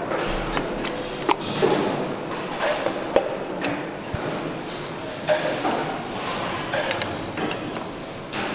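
Irregular metal clinks and knocks as pistons are slid into the cylinder bores of a Mercedes-AMG 63 V8 engine block, some with a short high ringing ping.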